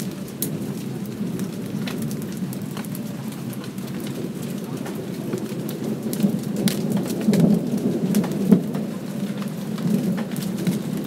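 Light rain falling, with single drops striking close by, over a low rumble of distant thunder that swells and grows louder in the second half.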